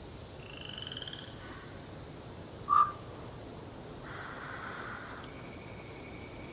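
Wild birds calling over a steady forest background hiss: a short rapid trill, one sharp loud call a little under three seconds in, a buzzy note about four seconds in, then a thin high trill.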